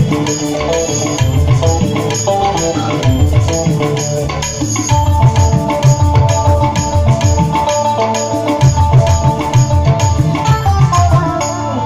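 Instrumental music: a steady, busy drum rhythm under a melody, with one long held note through the middle.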